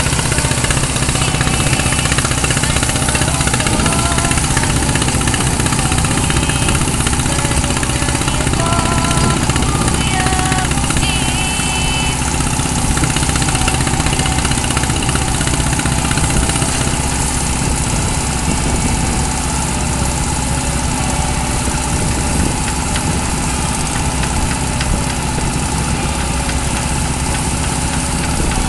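Heavy diesel engine running steadily at an even speed, with a constant hiss over it.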